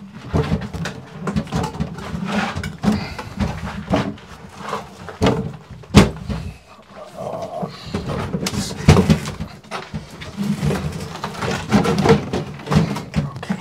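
Wooden kitchen base cabinets being shifted and handled by hand: a run of irregular knocks and bumps of wood, with one sharp knock about six seconds in the loudest.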